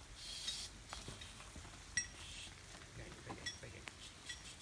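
An ox pushing through a narrow wooden fence gate: brief rustling, then a few light metallic clinks, the sharpest about two seconds in.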